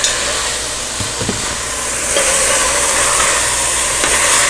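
Ground beef, onions and peppers sizzling in a hot enamelled Dutch oven while being stirred with a spoon: a steady frying hiss, with a couple of light taps about a second in.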